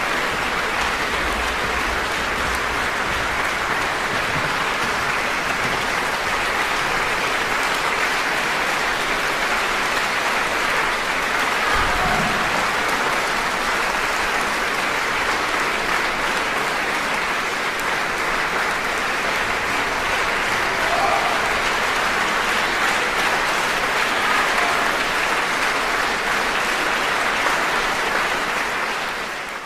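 Audience applauding steadily throughout, with one dull low thump about twelve seconds in.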